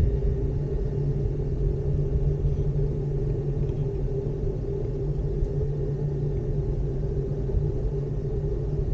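Steady low rumble and hum of a ropeway gondola cabin travelling along its cable.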